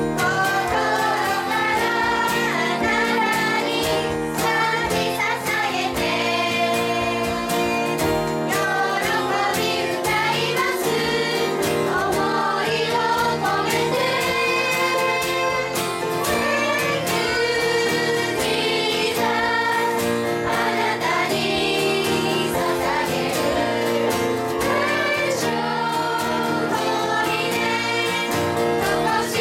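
A worship song sung by a group of children and a woman leading them, with live band accompaniment and a steady beat.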